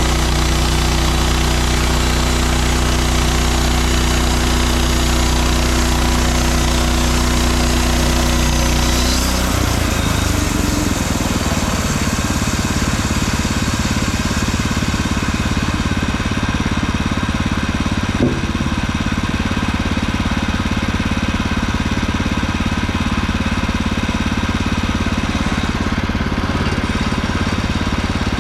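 Portable bandsaw sawmill's petrol engine running steadily, its note shifting to a different speed about nine seconds in, with a single brief knock about halfway through.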